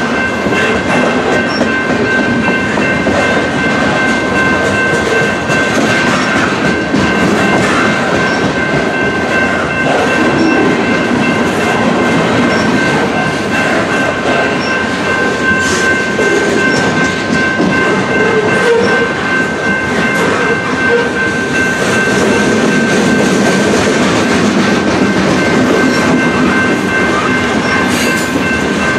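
Freight cars of a long BNSF mixed freight train rolling past close by, first boxcars and then covered gondolas. The wheels make a steady rumble and clatter on the rail, with a thin, steady high-pitched ringing over it.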